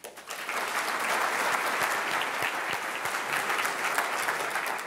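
Audience applauding, a dense steady clapping that builds just after the start and tails off near the end.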